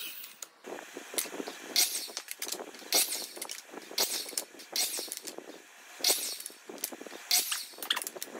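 A quick series of short noisy bursts and knocks, about one a second, from chopping 2x2 boards into short blocks on a DeWalt sliding miter saw, with the cut wooden pieces knocking together as they are handled.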